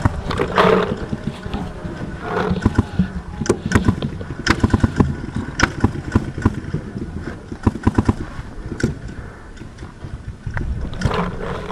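Paintball markers firing in quick strings of sharp pops, several shots a second, over scraping and rustling of gear handled close to the microphone.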